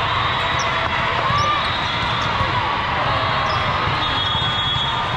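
Steady din of a large hall with many volleyball matches going on at once: a mix of distant voices and volleyballs being hit and bouncing, with a few brief high squeaks.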